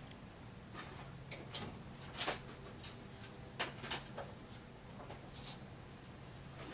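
Light clicks and taps of small metal and plastic parts and tools being handled on a workbench, about ten irregular knocks over a faint steady hum.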